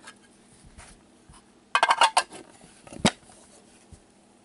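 Hard plastic card holders being handled on a table: a quick cluster of clicks and scrapes about two seconds in, then a single sharp click about a second later.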